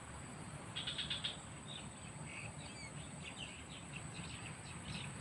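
Wild birds chirping: a quick run of short, high chirps about a second in, then scattered single chirps and short whistled notes, faint over steady outdoor background noise.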